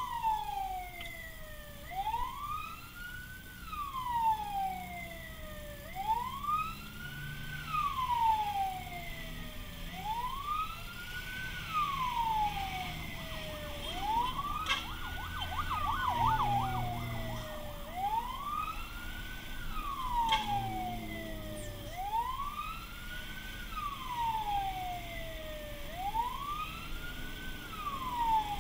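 Fire truck siren wailing, each cycle rising quickly in pitch and falling away slowly, repeating about every four seconds, heard from inside the truck's cab over the engine. Near the middle it briefly breaks into a fast warble.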